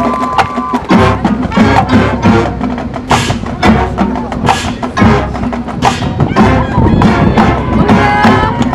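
High school marching band playing: sustained brass and woodwind lines over busy percussion with many sharp, wood-block-like hits.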